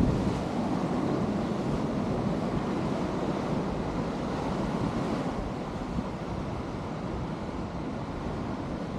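Sea surf breaking and washing over the rocks of a breakwater, a steady rushing, loudest at the very start and easing a little after, with wind buffeting the microphone.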